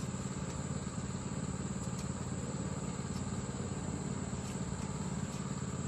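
A steady engine drone, as of an engine idling, holding the same level throughout.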